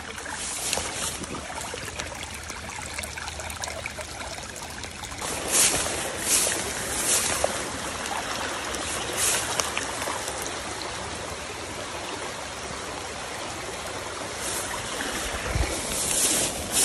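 Small rain-swollen ditch stream of muddy runoff running and trickling over grass and stones, a steady rushing, with a few brief louder noises from about five seconds in and near the end.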